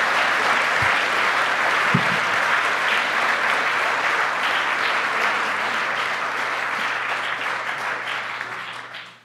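Audience applauding steadily, dying away near the end, with two dull low thumps about one and two seconds in.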